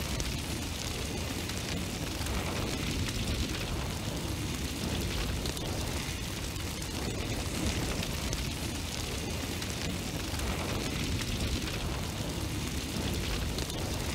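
Steady rushing noise with no beat, tones or separate strikes, at an even level throughout.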